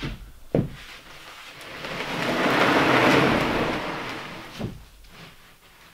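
A subfloor sheet knocks down onto the wooden floor joists, then slides into place with a long scraping rush that swells and fades over about three seconds, followed by another knock.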